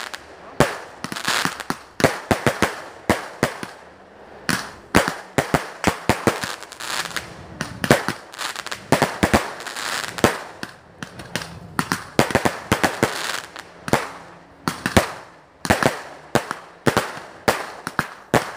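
Aerial fireworks firing in a continuous volley: many sharp bangs in quick, irregular succession, with crackle and hiss between the shots.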